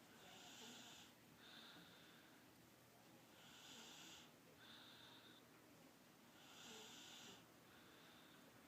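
A seven-month-old baby snoring softly in sleep. Three breaths come about three seconds apart, each in two parts: a hissy, wheezy stretch, then a shorter, narrower one.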